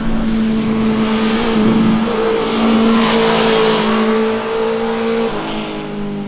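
Sport motorcycle engine going past at a steady throttle, getting louder toward the middle, with its pitch holding level and then dropping a step about five seconds in.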